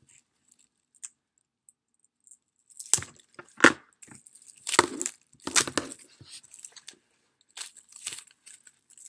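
Clear plastic wrapping being torn open and crinkled off a pack of nail files, in irregular crackling bursts that start about three seconds in, the sharpest a moment later.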